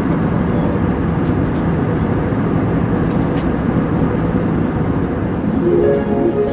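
Airliner cabin noise in flight: a steady, dense rush of engine and airflow noise with a low hum. Plucked harp music begins to fade in near the end.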